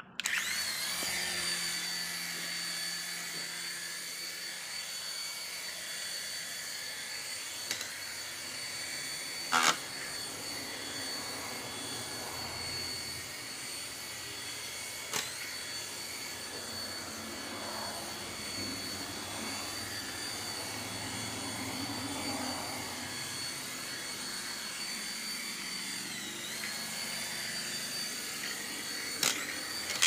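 Toy remote-control helicopter's small electric motors and coaxial rotors running with a steady high whine that starts suddenly at the outset. A few sharp knocks sound over it, the loudest about ten seconds in. The pitch dips briefly and recovers near the end.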